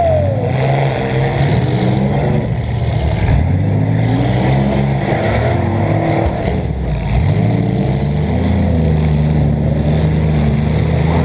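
Compact demolition derby car's engine running and revving, heard from inside the car, its pitch rising and falling before settling into a steadier run near the end.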